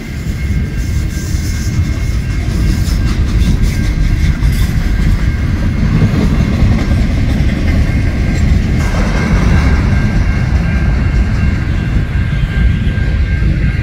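Freight train of loaded flatcars rolling past, a steady rumble of wheels on the rails with clicking over the rail joints, over a faint steady high whine.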